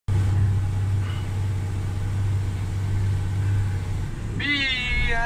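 Tata Prima 3338 dump truck's diesel engine running with a steady low drone while driving on a gravel road. About four seconds in, a short high voice-like cry falling in pitch rises over it.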